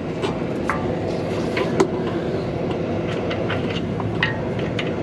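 Scattered light clicks and snips of hand tools and small plastic parts being worked, over a steady low background rumble.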